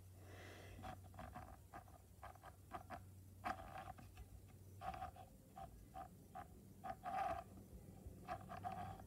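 A girl's voice in a run of faint, short, irregular bursts with no words, a few a second.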